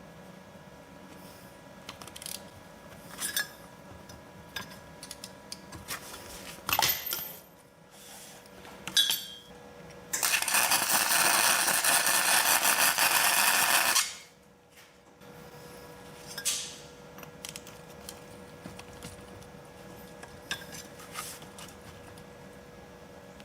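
Light metal clinks and knocks from handling tools and parts, then a steady crackling hiss lasting about four seconds: a weld being laid to fix a nut onto a locking wheel lug nut.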